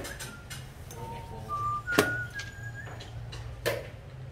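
Sharp clacks from a xiangqi game, pieces set down on the wooden board and the chess clock pressed: three clacks, the loudest about halfway. Between them come a few short whistled notes stepping up in pitch.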